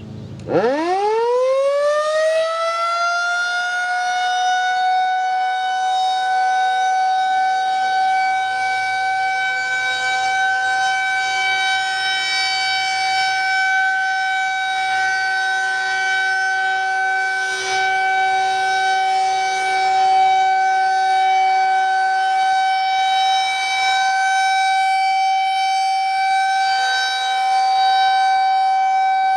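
Federal Signal 2001-130 electromechanical tornado siren winding up from a low pitch to one steady high tone within about two seconds, then holding that tone for its weekly test.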